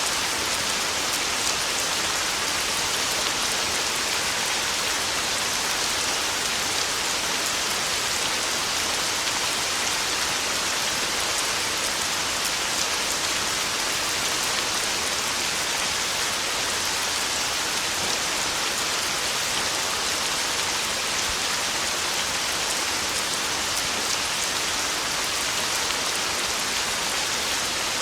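Heavy rain falling steadily on a tin roof, an even unbroken hiss with no thunder.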